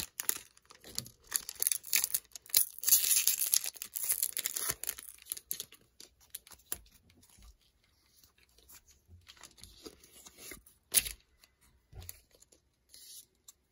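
Foil booster-pack wrapper being torn open and crinkled for about the first five seconds. Then quieter rustles and light clicks of trading cards being handled, with one louder click about eleven seconds in.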